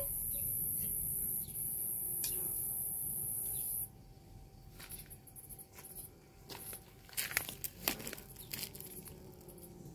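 A steady high hiss that cuts off about four seconds in, then light scuffs and rustles in dry leaf litter and soil, with a few louder scrapes around seven to eight seconds in.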